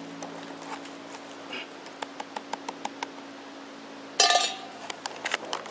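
A metal spoon clatters loudly against a blue enamel cup once, about four seconds in, with a short metallic ring. Before it come a few light ticks.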